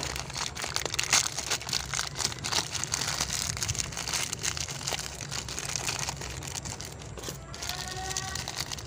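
A clear plastic bag crinkling and rustling as it is handled and torn open, irregular crackles throughout, to unpack a new universal joint.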